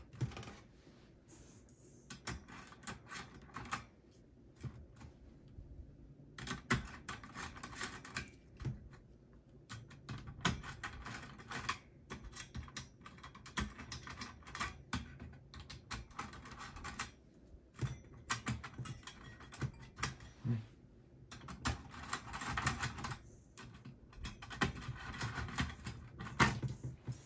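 Screwdriver loosening the CPU cooler's retaining screws on a desktop motherboard: irregular clicks, short scraping turns and light rattles of the metal heatsink being handled.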